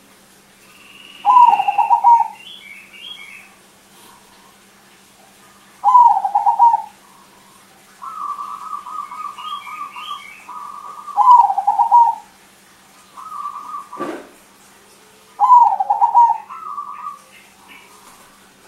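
Crossbred zebra dove (perkutut) singing: four loud phrases of rapid staccato cooing a few seconds apart, with softer trilled phrases in between. A sharp click sounds about three-quarters of the way through.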